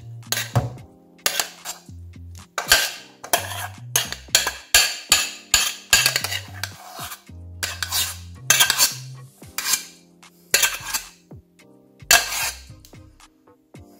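Metal spoon scraping and clinking against the inside of a stainless steel pot in many quick, irregular strokes, as thick porridge is scraped out into a bowl.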